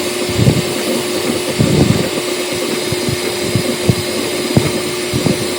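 Bambu Lab P1S 3D printer running a print: its fans give a steady hum and hiss while the stepper motors make quick, irregular whirs as the print head darts about.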